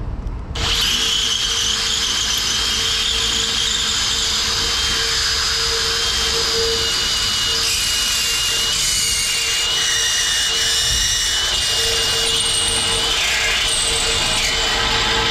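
Cordless drill with a step bit running steadily as it cuts through a chrome truck bumper: a constant motor hum under a high metallic whine that wavers as the bit bites. It starts about half a second in.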